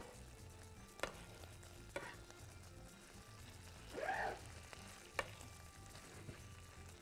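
A spoon stirring food in a frying pan over faint sizzling, with a few sharp clinks of the spoon against the pan and a short squeak about four seconds in.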